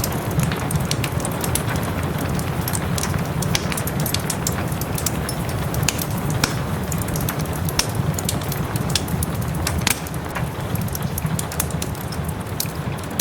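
Wood fire crackling with many sharp irregular pops over a steady wash of rain with a low rumble. The overall level drops slightly about ten seconds in.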